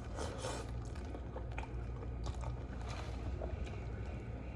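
A person eating noodles and shrimp up close to the microphone, with scattered small chewing clicks and smacks over a steady low background hum.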